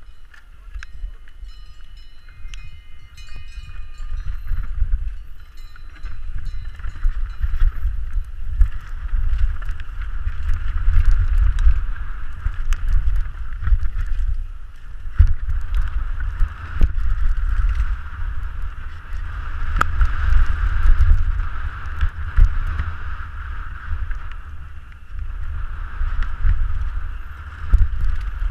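Wind rumbling on an action camera's microphone during a fast mountain-bike descent on a Canyon Strive, with tyres hissing over dusty dirt and gravel and frequent sharp clicks and knocks from the bike over bumps. It grows louder over the first several seconds as speed builds, then swells and dips.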